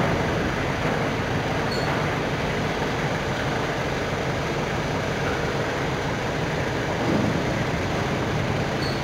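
Conveyor belt running over its rollers, a steady mechanical rumble that holds at an even level.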